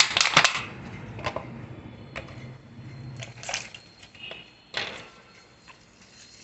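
Clear plastic strawberry clamshell crackling and clicking as it is handled, loudest in a burst in the first half second, then scattered single crinkles and clicks, over a faint low steady hum.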